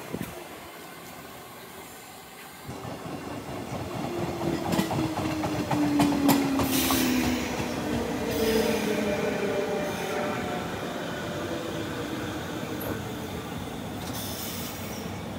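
JR West 201-series electric train arriving, its armature chopper control giving steady whining tones that slide down in pitch as the train slows, with a run of clicks from the wheels as the cars pass. It is faint at first and grows louder from about three seconds in.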